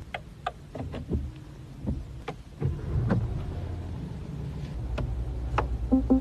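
Rolls-Royce Ghost V12 engine starting and settling into a low, steady idle, heard from inside the cabin, with scattered sharp clicks over it. Near the end a quick repeating tone begins, about six pulses a second.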